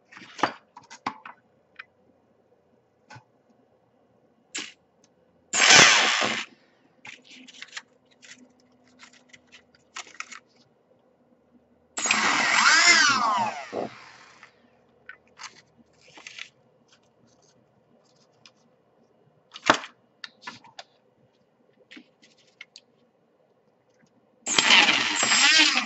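Replacement GForce D2204 2300KV brushless motor on a quadcopter arm briefly spun up in three short bursts, the middle one with a whine gliding up and down, as its spin direction is checked. Between the bursts, small clicks and taps from handling.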